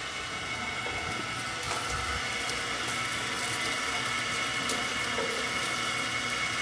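Electric sugarcane juicer running as a stalk of sugarcane is fed through its crushing rollers: a steady motor hum with a steady whine over it.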